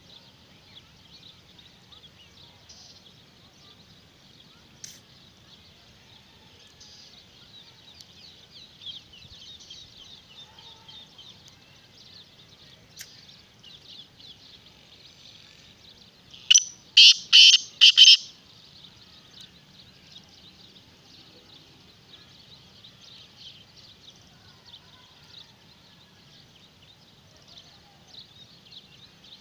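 Black francolin calling: one loud, grating phrase of about five quick notes a little past halfway. Under it runs a faint, steady high chirring background.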